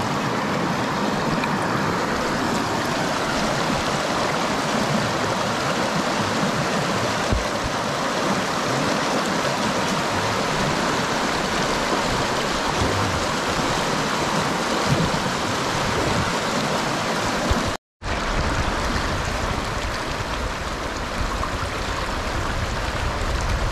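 Shallow rocky stream rushing steadily through riffles, with a split-second gap in the sound about three-quarters of the way through.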